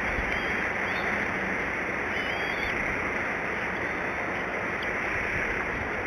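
Steady wind noise on an outdoor nest-camera microphone, with faint high bird chirps twice in the first three seconds.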